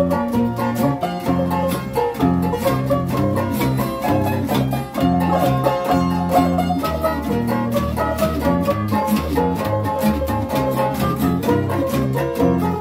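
Small string band playing together: banjos and a guitar strummed and picked in a steady rhythm over a plucked bass line from a large acoustic bass.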